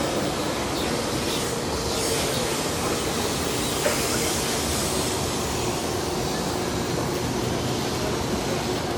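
Taiwan High Speed Rail 700T train pulling into the platform, its motor whine slowly falling in pitch as it slows, over a steady rushing hiss. A brief click sounds about four seconds in.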